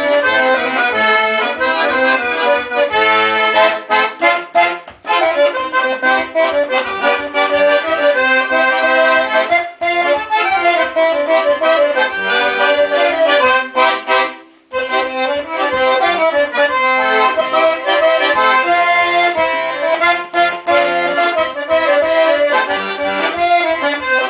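Button accordion playing a tune, the melody over an even, regular bass-and-chord accompaniment, with a brief break about fourteen and a half seconds in.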